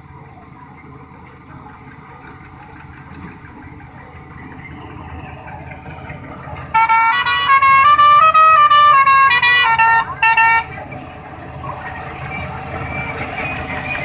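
A heavy machine engine runs steadily, slowly growing louder, typical of a self-propelled combine harvester. About seven seconds in, a loud multi-tone musical vehicle horn plays a short tune, stepping up and down in pitch for about four seconds with two brief breaks, then stops and the engine noise carries on.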